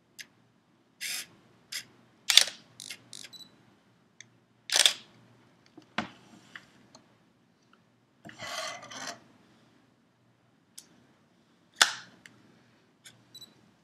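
Canon T3i DSLR's shutter and mirror firing several separate times, the loudest releases a few seconds apart, with small clicks between. The camera is working again after a factory repair for Error 70.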